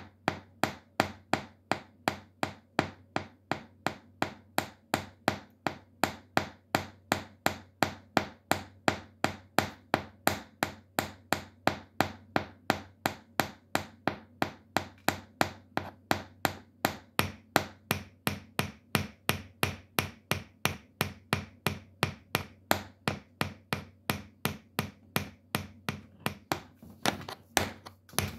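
Metal taps on tap shoes striking a hard floor in a steady rhythm of about three sharp clicks a second, with a short scrape near the end as the tapping stops.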